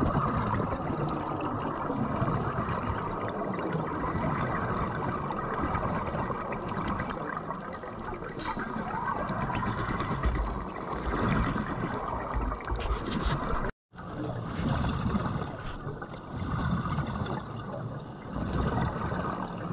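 Muffled underwater noise with gurgling air bubbles, heard through a diver's camera in its underwater housing. The sound cuts out for a moment about 14 seconds in.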